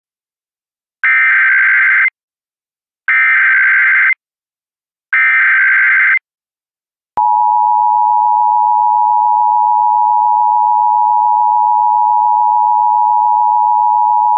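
Emergency Alert System tones: three short data bursts of the SAME header, each about a second long and a second apart, then about seven seconds in the steady two-note attention signal (853 and 960 Hz) starts and holds.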